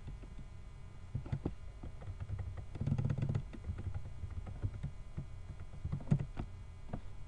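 Typing on a computer keyboard: irregular key clicks, with a brief low hum about three seconds in.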